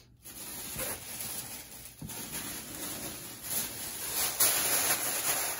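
Cardboard shipping box being opened and dug into, with clothing pulled out: a steady rustling noise with a couple of sharper crackles.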